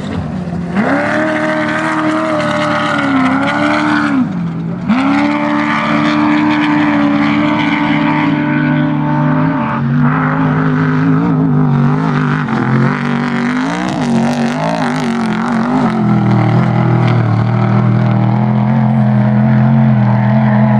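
Off-road race vehicle engines running hard at high revs, the pitch dipping and climbing again and again with throttle lifts and gear changes, across a few back-to-back passes.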